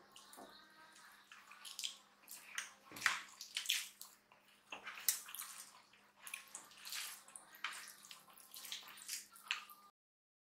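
Eating sounds of two people eating rice, dal and vegetable curry by hand: irregular clicks and smacks from chewing and from fingers mixing the rice. A faint steady hum runs underneath, and the sound cuts out briefly near the end.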